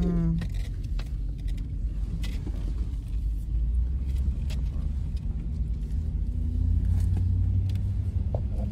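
Pickup truck driving slowly, heard from inside the cab: a steady low engine and tyre rumble with scattered light clicks. The rumble grows a little stronger about seven seconds in.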